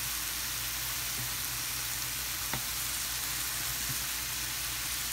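Mushrooms sizzling steadily as they brown in olive oil in a frying pan, with one light click about halfway through.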